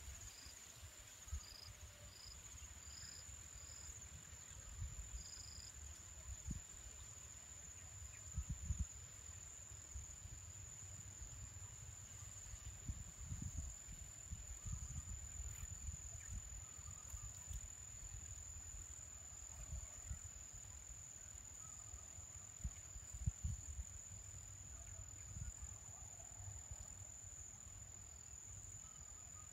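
Insects trilling in a grass field: one steady, high-pitched trill that does not change, with a few short chirps over it in the first few seconds. Irregular low rumbles sound on the microphone throughout.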